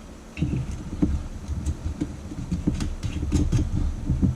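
Spoon stirring warm sugar syrup in a saucepan on the stove, irregular scraping and knocking against the pan from about half a second in.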